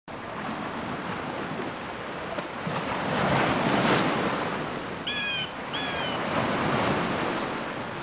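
Rushing sea surf with wind, swelling to its loudest about four seconds in. Two short high cries come a little after five seconds.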